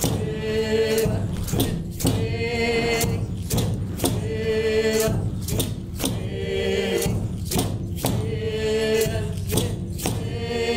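Music: chanting voices singing short repeated phrases about every two seconds over a steady beat of about two strikes a second.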